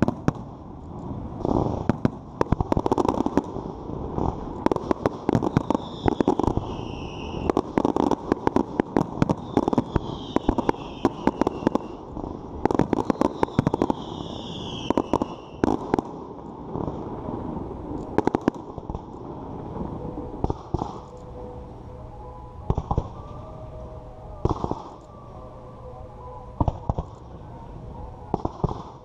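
Fireworks display: a dense barrage of shell bursts and crackling reports, with whistling tones gliding down in pitch three times, thinning in the second half to spaced single bangs.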